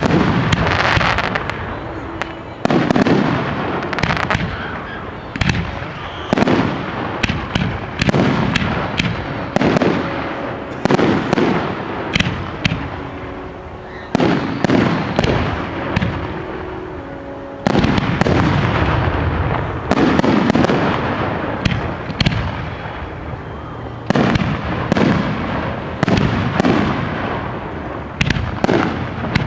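Fireworks display: aerial shells bursting in a steady run of sharp bangs, one every second or two, each followed by a rumbling echo that dies away.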